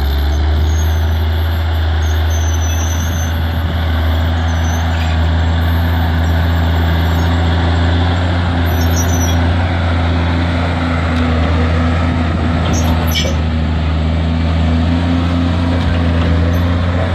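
John Deere 6170M tractor's six-cylinder diesel engine running loud and steady under load as it tows a levelling scraper through soil.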